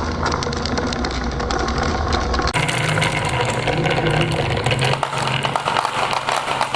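Marbles rolling and clattering down a wooden marble run: a steady rolling rumble thick with quick small clicks. The sound changes abruptly about two and a half seconds in.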